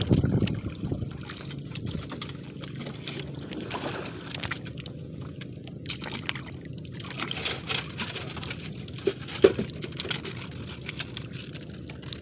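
Water sloshing and splashing against a small paddled outrigger canoe, with paddle strokes in the water and no engine running. A single sharp knock comes about three-quarters of the way through.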